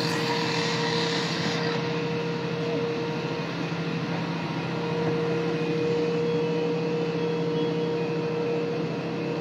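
Fire engine running at a constant speed, a steady mechanical drone with an even hum, its pump feeding the hose lines laid out to the fire.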